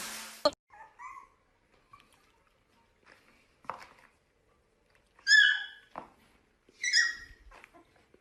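A puppy giving two high-pitched cries, one about five seconds in and one about seven seconds in, with a few fainter squeaks and small knocks before them.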